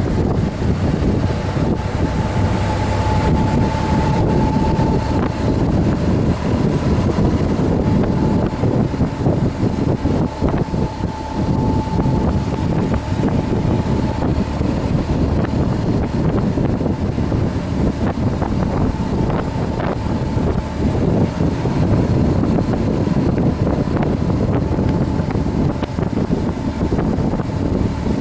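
Motorcycle engine running at steady road speed under strong wind rush on the mounted camera's microphone.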